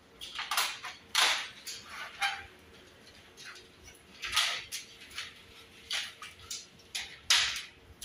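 Plastic window-aircon front grille and air filter being handled and fitted together: an irregular series of short scraping and rattling sounds.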